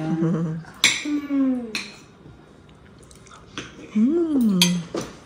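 Brief voices at a family dinner table, with a rising-then-falling vocal sound about four seconds in, and a few light clicks of forks against plates.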